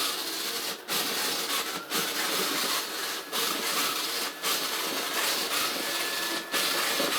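Sichler NX-9644-675 robot vacuum (a rebranded CleanMate QQ-7) running its motors with a loud, horrible mechanical noise. The noise drops out briefly about once a second.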